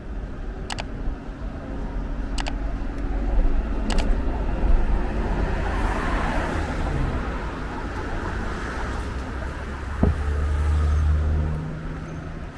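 Urban road traffic: cars and an articulated city bus passing through an intersection, a steady low rumble of engines and tyres. It swells as a vehicle passes about halfway through, and a deep engine hum comes in after a short knock near the end.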